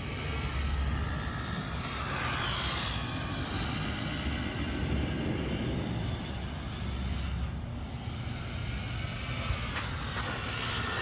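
Radio-controlled dirt-track car running laps, its motor whining up and down in pitch as it speeds up and slows through the turns.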